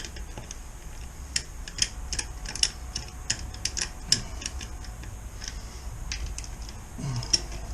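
Light, irregular metallic clicks and ticks as the rear-wheel bolts of a BMW R1250RT are run in, several a second in loose clusters.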